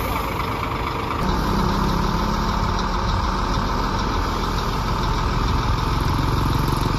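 Scania coach's diesel engine idling steadily, its low hum growing a little stronger about a second in.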